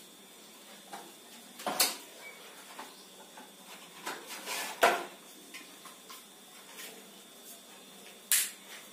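Scattered knocks and clicks of things being handled, the loudest about two seconds in, near the middle and near the end, over a faint room hiss.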